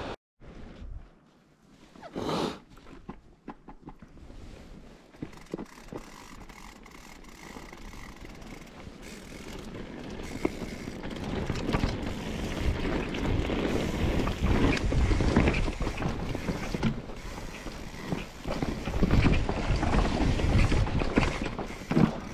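Mountain bike ridden down a natural trail: wind on the microphone with tyre noise and rattling clicks from the bike. It is quiet at first, with one brief whoosh, then gets louder and busier from about halfway through.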